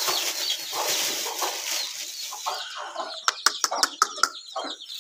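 A plastic feed bag rustling, then a mother hen clucking repeatedly beside her chicks, with faint chick peeps and a few sharp ticks about three to four seconds in.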